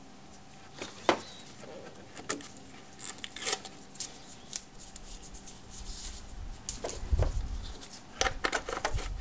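Scattered plastic clicks and rustling of latex-gloved hands handling headlight bulb sockets and wiring connectors inside a pickup's headlight opening, with a dull low thump about seven seconds in and a quick run of clicks near the end.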